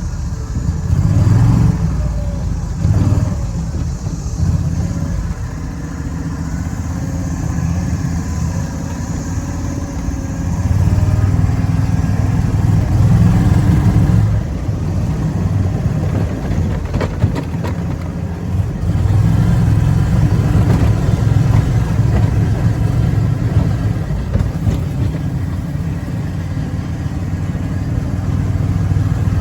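Engine of a Snapper Trail Cruiser utility cart running while it is driven, speeding up and easing off several times. A few sharp knocks come about halfway through.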